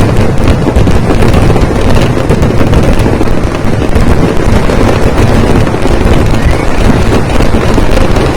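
A dense, continuous barrage of fireworks blasts, the bangs coming so fast that they merge into a steady, very loud roar that overloads the microphone.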